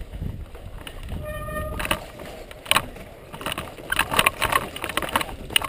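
Downhill mountain bike riding over rough trail, heard from a helmet camera: a low rumble at first, a brief high squeal about a second in, then a run of sharp clicks, knocks and rattles as the bike goes over rocky ground.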